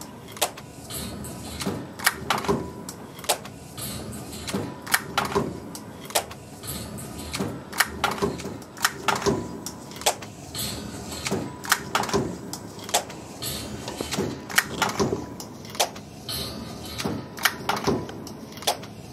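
Pleating machine cycling its blade and pusher bar with no material in it, a run of sharp mechanical clacks about two or three a second, somewhat uneven, over a faint steady tone.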